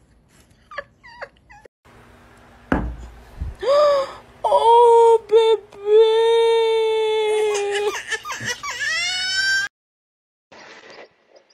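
A low thump, then a long, high-pitched whimpering cry held steady for several seconds, breaking briefly and sliding upward before it stops near the end.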